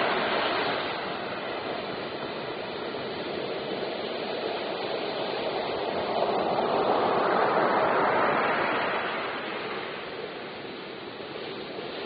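Ocean surf: waves breaking and washing up the beach in a continuous rush, swelling about six seconds in and easing off a few seconds later.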